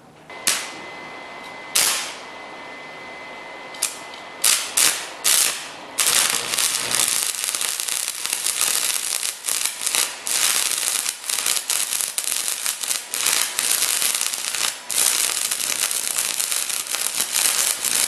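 Stick welding with a 6013 rod on 3/16-inch plate, powered by a cheap 115 V flux-core welder's AC output. A few short crackling bursts as the arc is struck and breaks off, then from about six seconds in a steady crackle and sizzle of the running arc.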